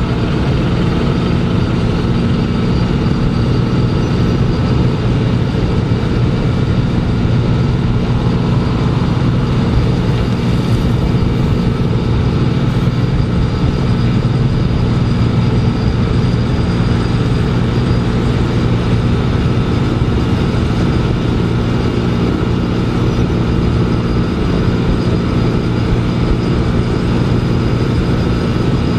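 Heavy diesel machinery from a cold milling machine at work on asphalt, running steadily and loudly at a constant engine speed.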